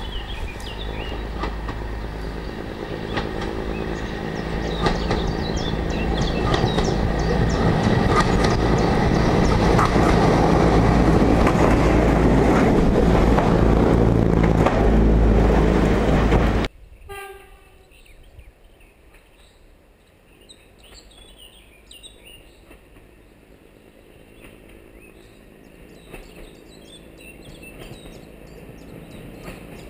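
BR Class 122 single-car diesel railcar approaching and passing beneath, its engine and wheels on the rails growing steadily louder to a peak. About halfway through the sound drops away suddenly to a much quieter scene with birdsong and a faint low rumble.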